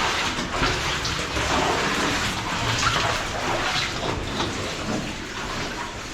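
Cave waterfall: water pouring and splashing in a steady rush with many small splashes throughout.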